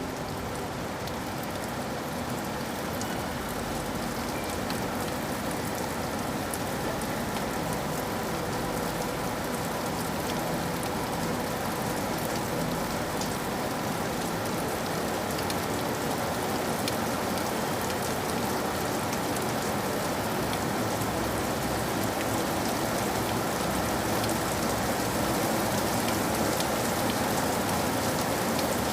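Steady rain falling: a dense, even hiss dotted with many small drop ticks, growing slowly a little louder.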